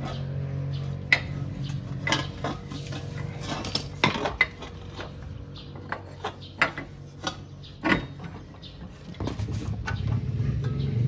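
Metal tools and car parts clinking and knocking irregularly during hub bearing and suspension reassembly, over a low steady hum that swells again near the end.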